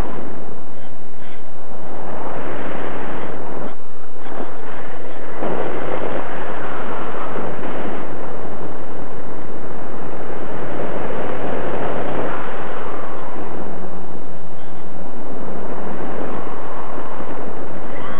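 Airflow and motor noise picked up by an on-board camera microphone on a radio-controlled plane in flight. It is a loud, rough rush that swells and fades several times.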